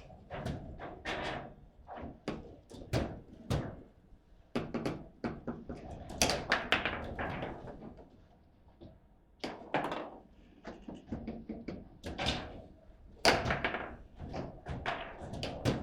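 Table football game in play: an irregular run of sharp knocks and thunks as the ball and rod-mounted players strike each other and the table, with a brief lull a little past the middle.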